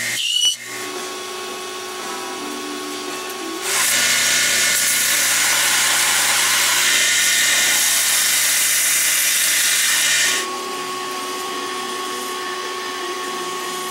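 A 2x72 belt grinder running with a steady motor hum. From about four seconds to ten seconds, a louder, wide grinding hiss as steel is pressed against the moving belt, then the grinder runs on unloaded.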